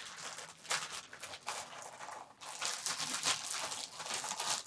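A small plastic bag of electronic parts crinkling and rustling in the hands as it is handled and opened, in short irregular rustles.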